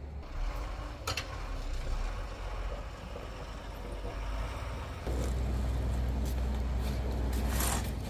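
Snowplow truck engine running steadily, getting clearly louder about five seconds in, with a snow shovel scraping the ground near the end.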